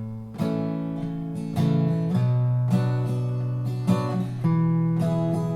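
Acoustic guitar strumming chords, an instrumental intro before the singing begins, with a fresh strum every half second to second.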